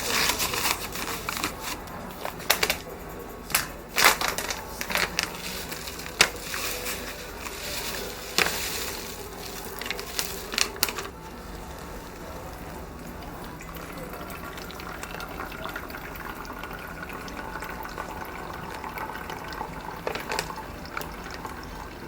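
Sharp clinks and knocks of dishes or utensils being handled. About eleven seconds in, these give way to a steady stream of water being poured, as in hand-drip coffee brewing.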